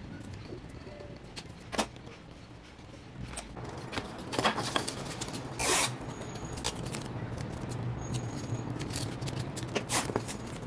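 Adhesive tape pulled off a desktop tape dispenser and torn on its blade, a short loud rasp about halfway through. Scattered light clicks and taps of tools on the bench come before and after it.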